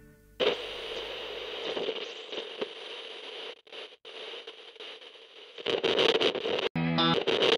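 A steady crackling, static-like hiss that starts abruptly about half a second in and grows louder near the end, where music with plucked-string notes begins.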